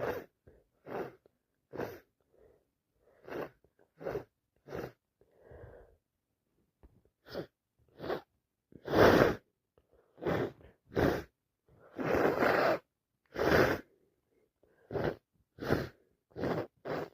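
A person in a sneezing fit: a run of short sneezes and sniffs, about one a second, with louder, longer sneezes from about nine seconds in.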